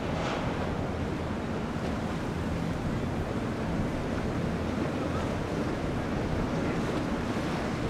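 Quad Yamaha 425 XTO V8 outboards running at low cruising speed, a steady low hum under the wash of the hull pushing through the water, with wind on the microphone.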